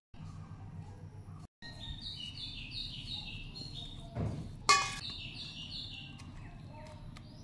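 A metal spoon clinks once against a stainless steel bowl about halfway through, with a short bright ring. This sits over a steady low hum and repeated runs of high chirping notes that fall in steps.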